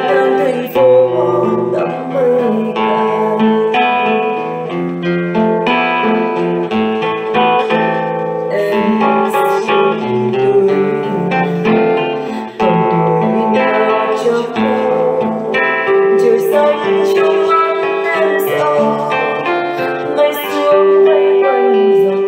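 Music: a slow ballad backing track with plucked acoustic guitar and keyboard.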